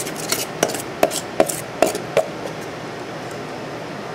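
Metal portion scoop knocking and scraping against a stainless steel bowl while scooping potato pancake batter, about eight sharp clinks with a brief ring in the first two seconds or so, then quieter.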